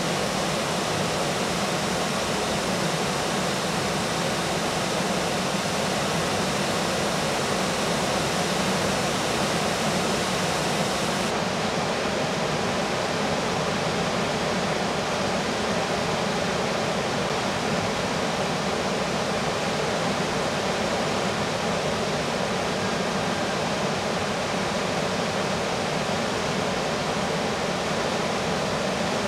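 Whitewater rapids rushing steadily over a rocky river ledge: a constant, even roar of water with no breaks.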